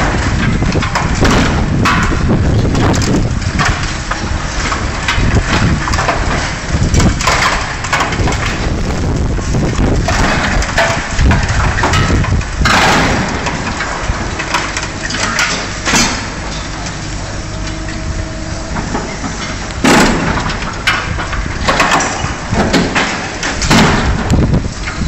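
Liebherr 944 demolition excavator working a steel girder: metal and rubble crunching and cracking, with repeated sharp knocks over the running diesel engine. Two of the cracks, about halfway through and again past two-thirds, are the loudest.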